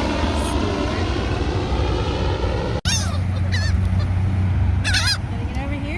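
A steady rushing noise cuts off abruptly a little under three seconds in. It is followed by seagulls calling: several short, sharply wavering cries over a low rumble.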